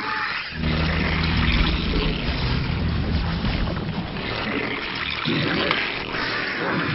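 Real-time strategy video game sound effects from a Zerg army: a low rumbling drone that comes in about half a second in and eases off after a few seconds, under rough, rasping noise.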